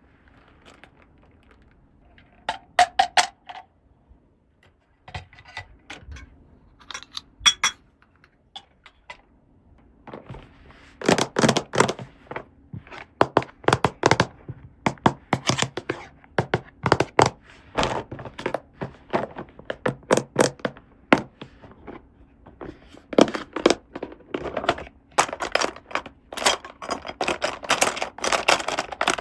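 Small plastic toy pieces and packaging being handled: clicks, taps and knocks, a few scattered in the first ten seconds, then coming thick and fast.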